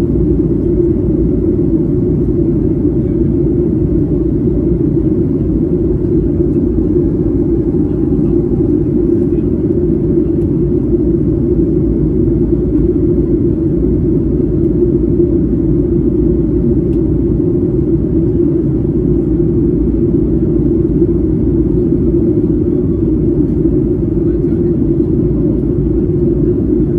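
Steady cabin noise of a Boeing 737-800 in flight, heard from a window seat by the wing. It is an even, low drone of CFM56-7B engines and airflow, with no change in pitch or level.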